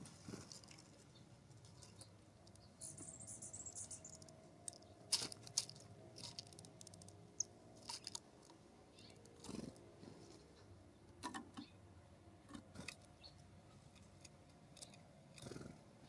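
Faint scattered clicks and taps of small birds landing on a wooden log and pecking at birdseed, with a brief high chatter about three seconds in.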